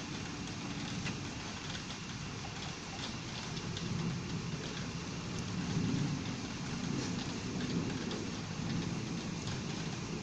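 Steady rain falling, with small drop clicks close by, under a low rumble of thunder that swells about four to eight seconds in.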